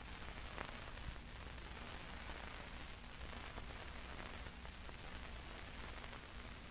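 Steady hiss and low hum of an old film soundtrack, with a few faint clicks: background noise with no narration or music.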